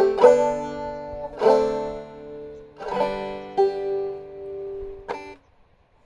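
Banjo in standard G tuning, played clawhammer style, closing a tune with a few slow, ringing chords. A last short strum about five seconds in is cut off, and the playing stops.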